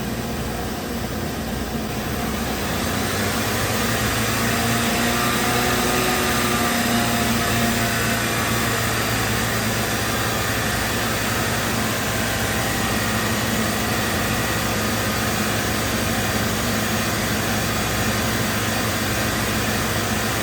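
2016 VW 1.8 TSI turbocharged four-cylinder engine brought up from idle to a higher RPM over the first few seconds and then held there steadily. At this raised speed it runs without the cylinder 4 misfire that returns as soon as it drops back to idle.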